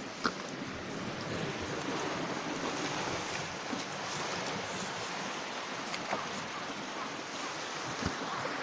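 Sea surf washing on a stony shore: a steady rushing that swells slightly a couple of seconds in, broken by a few short sharp clicks.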